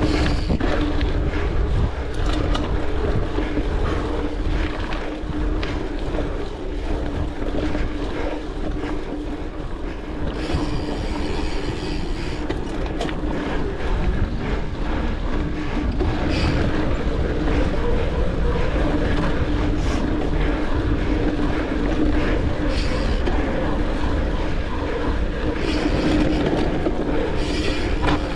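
Mountain bike ridden fast along a dirt trail: a steady hum under continuous rumble and rattling, with sharp knocks from the bike over bumps.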